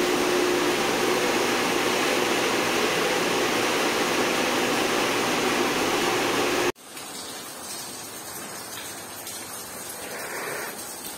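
Water spraying and gushing from a leak on fire pump piping, a steady rush of water. About two-thirds of the way through it drops abruptly to a quieter spray.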